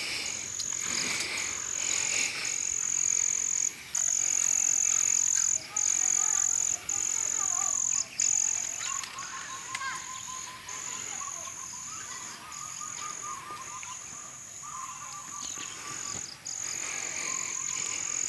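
Insects trilling continuously at a high pitch, the trill breaking off briefly every second or two. In the middle a run of rapid, lower repeated calls joins in, like a frog croaking.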